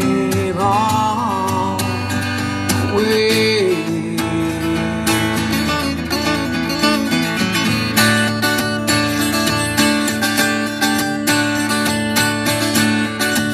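Acoustic guitar strummed in a steady rhythm, with a voice holding a few long, wavering notes near the start.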